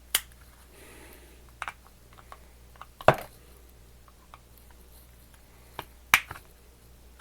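Sharp plastic clicks and snaps from a remote control's plastic case as it is pried open with a screwdriver and handled: four loud clicks, the loudest about three seconds in, with lighter ticks between.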